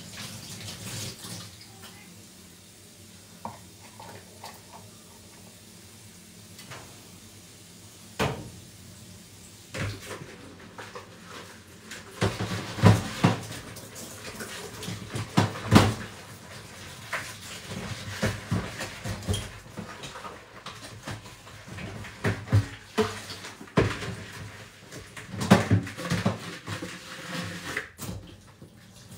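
Dishes and bowls being washed by hand in a stainless steel sink: irregular knocks and clatters over running tap water, busier from about halfway through.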